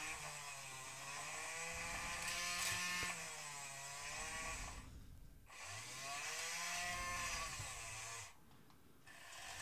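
Small electric motor of a toy excavator whining as it drives the bucket arm, its pitch sagging and rising with the load, in two runs with a short pause between and a brief burst near the end.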